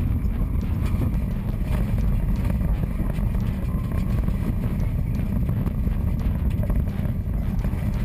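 Rally car engine and road noise heard from inside the cabin: a steady low rumble.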